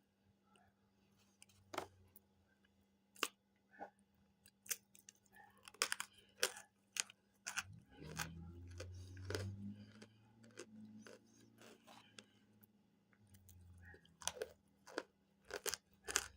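Baked cornstarch chunks being bitten and chewed: many irregular, sharp, dry crunches, with a low hum partway through.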